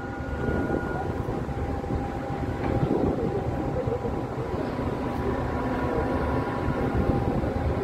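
Ferry's engines running steadily while it berths, a low rumble with a few faint steady tones over it.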